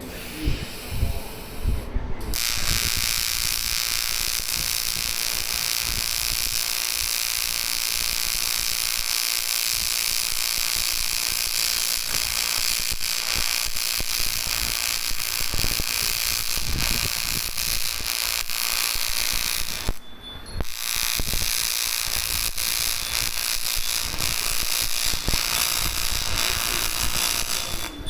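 AC TIG welding arc on aluminium: a steady buzz with a high hiss. It is struck about two seconds in, stops for a moment about twenty seconds in, then is struck again.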